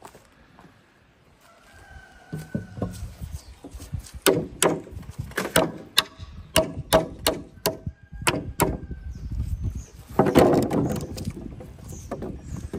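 A dozen or so sharp knocks and clatter in quick irregular succession, then a rush of scraping noise near the end.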